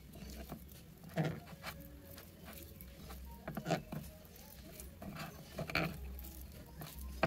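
Fingers squeezing and tossing flour-coated prawns in a glass bowl, making soft irregular pats and rustles; the louder ones come about a second in, near four seconds and near six seconds. A low steady hum runs underneath.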